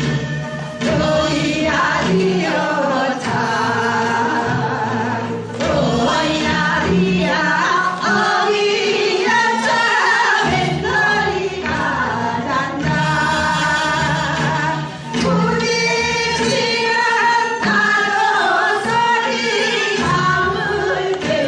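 Music with singing: a song sung by several voices over instrumental accompaniment.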